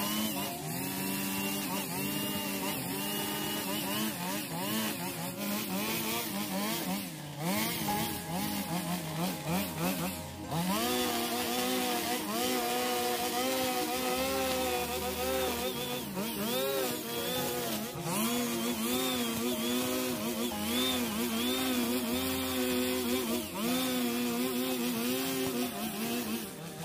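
45 cc two-stroke petrol brush cutter with nylon trimmer line, cutting thick overgrown grass and weeds. Its engine pitch rises and falls over and over as the throttle is worked and the line bogs in the grass, with a short drop in revs about ten seconds in.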